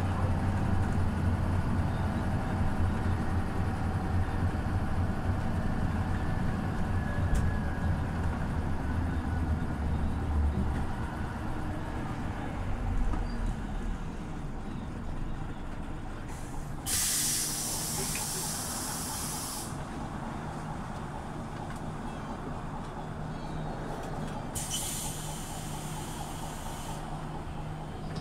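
Scania OmniLink city bus from on board: the low engine hum fades about ten seconds in, and the engine then runs at a steady low tone. Two loud hisses of released compressed air from the bus's pneumatic system follow, one about three seconds long and one about two and a half seconds.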